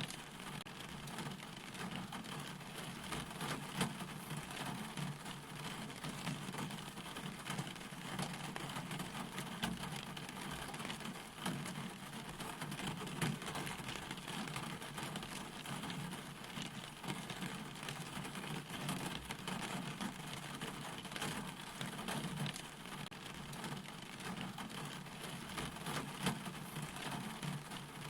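Steady rain falling: an even hiss with many small, distinct drop impacts throughout.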